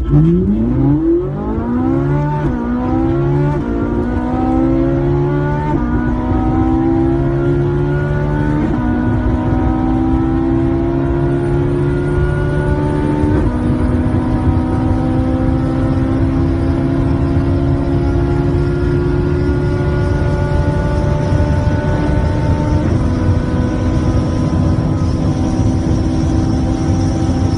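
Sports car engine heard from inside the cabin, accelerating hard from low speed to nearly 300 km/h. Its pitch climbs through each gear and drops at every upshift, about six shifts, coming further apart in the higher gears.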